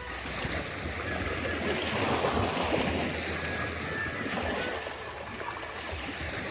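Waves washing, swelling a couple of seconds in and easing off, with some wind noise.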